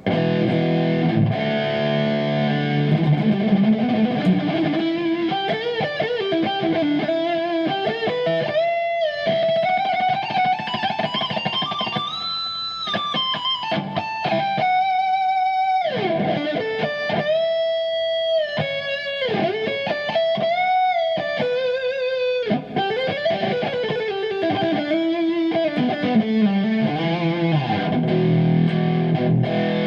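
Kiesel Osiris electric guitar on its neck beryllium pickup, played through a Kemper profiler's higher-gain plexi lead profile with a little delay: distorted lead lines with gliding string bends and held, sustained notes, opening and closing on chords.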